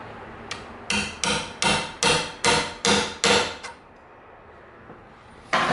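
Hammer striking a hollow-tip nail-setting punch, driving a double-pointed blind nail into the drawer box: a light tap, then about seven quick strikes at roughly three a second, each ringing briefly, and one more strike near the end.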